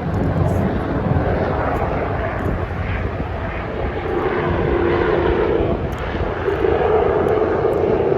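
Aircraft engine drone passing overhead, growing louder about four seconds in.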